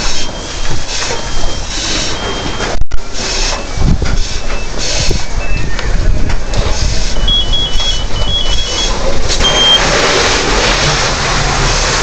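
Fire-apparatus engine running with short high electronic beeps sounding again and again. About seven seconds in, a quick two-tone beeping alternates between two pitches. From about nine and a half seconds the noise turns to a steadier rush.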